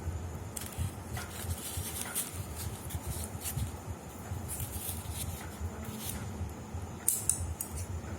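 Hands handling the hazard light's packaging and plastic parts: scattered rustles and small clicks, with a sharper cluster of clicks about seven seconds in, over an uneven low rumble.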